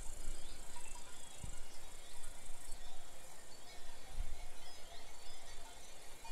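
Forest ambience: a steady high-pitched chorus of chirping insects, with a few faint short chirps over it and two low rumbles, about a second and a half and about four seconds in.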